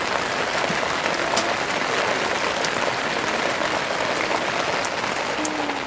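Heavy rain, with water streaming and dripping off the edge of a thatched roof and splashing onto the ground: a dense, steady hiss with a few faint ticks of single drops.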